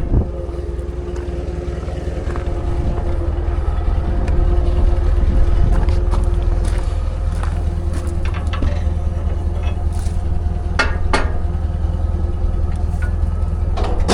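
Engine of heavy farm machinery running steadily at idle, a low even rumble, with a couple of sharp metal clanks about eleven seconds in.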